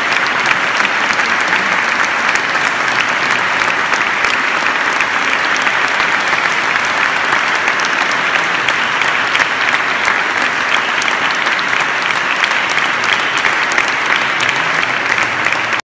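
Sustained applause from a concert audience and the choir: many hands clapping in a dense, steady patter that holds at an even level.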